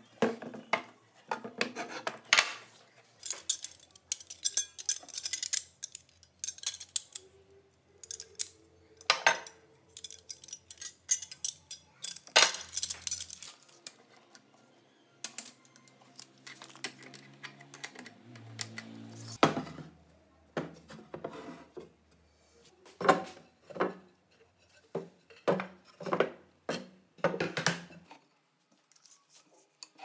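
Irregular handling clatter: knocks, taps and metallic clinks as a washing machine motor and parts are moved about in a wooden drawer and a steel tape measure is pulled out and laid across it.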